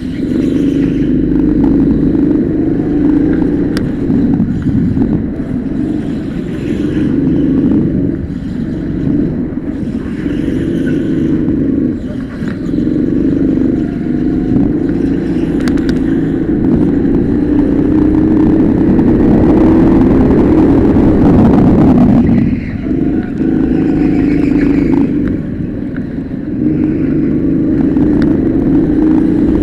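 Go-kart engine heard from onboard, running hard on the straights and dropping back briefly each time the driver lifts for a corner, several times.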